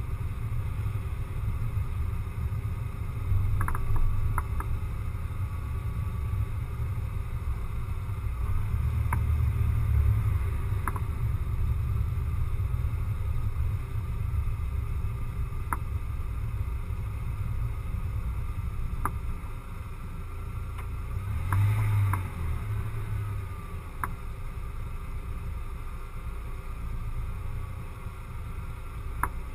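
Steady low rumble of a car driving slowly along town streets, picked up by a camera mounted on the outside of the car: road and engine rumble with buffeting that swells a few times, and a scattering of faint light clicks.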